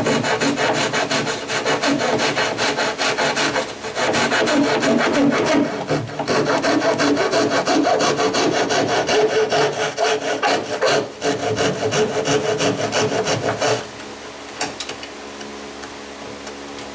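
A flat steel hand tool rasping back and forth in quick strokes, cutting and smoothing a slot in painted plywood. The strokes stop abruptly near the end.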